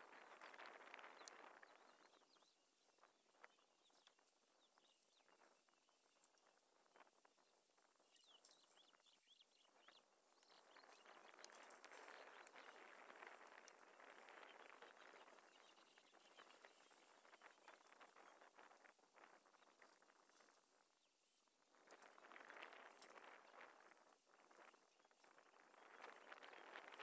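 Faint savanna ambience: a high, thin insect trill pulsing evenly throughout, over a soft hiss that swells and fades.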